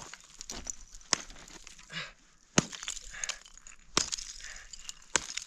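A hammer striking hard frozen stream ice about five times, a second or so apart, with small chips and fragments clinking and crackling between the blows. The ice is hard and breaks off only in small pieces.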